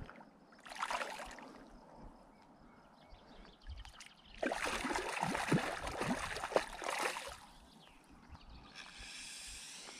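Water lapping and splashing at a rocky lake shore, with a louder stretch of splashing and rustling lasting about three seconds in the middle.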